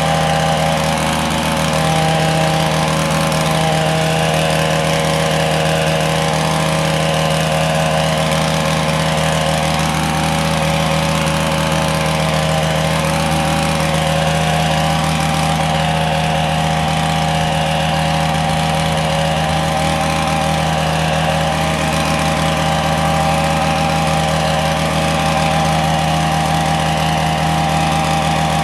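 A small petrol engine running steadily at one constant speed throughout.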